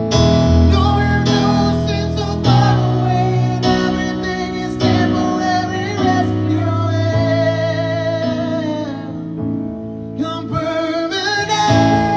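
Live solo performance of a slow ballad: a man singing long held notes over strummed acoustic guitar chords. The music drops back briefly about ten seconds in, then swells again.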